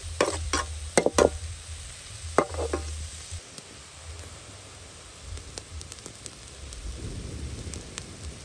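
Metal spatula scraping and stirring red ants, their eggs and chillies around a steel wok, about six quick strokes in the first three seconds. After that the mixture hisses faintly as it dry-fries over the fire.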